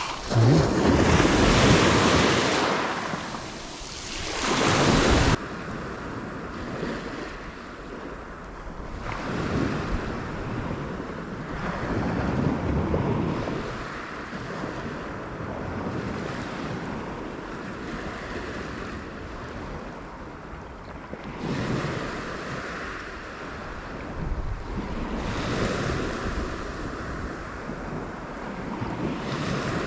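Sea waves washing and wind blowing on the microphone. A loud rush of wind noise in the first five seconds cuts off suddenly, then the surf swells and ebbs every few seconds.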